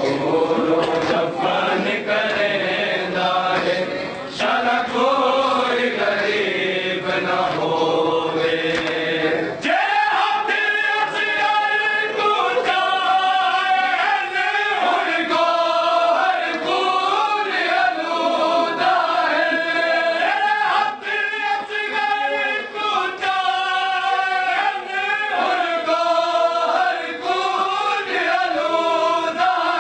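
A group of voices chanting a noha, a Muharram mourning lament, together in a slow, drawn-out melody. About ten seconds in, the sound abruptly turns clearer and thinner as the singing goes on.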